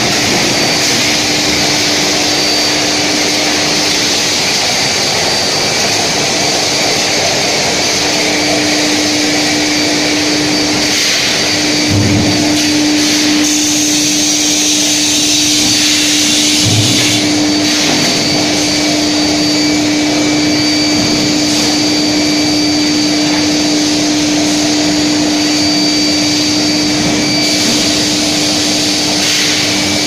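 Induction billet heating furnace line running: a steady, loud rushing machine noise with a constant hum and faint high whines that come and go. Two short low thumps sound near the middle.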